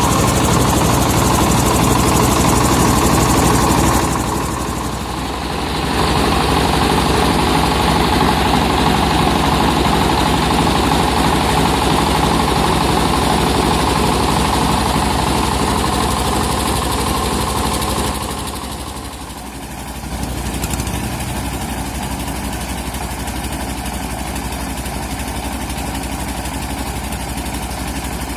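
Portable rice milling machine running: a steady engine drone with the noise of the mill working. The sound dips twice, briefly about four seconds in and again near the two-thirds mark, after which it carries on slightly quieter.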